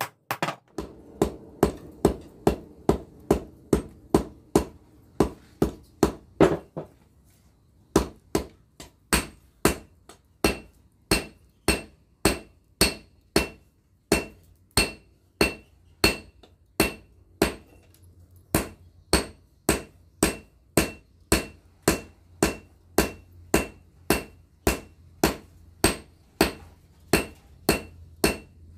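Hand hammer striking red-hot pattern-welded (pamor) iron on an anvil, steady blows about two a second, each with a short metallic ring, with a brief pause about seven seconds in. A low steady hum runs underneath.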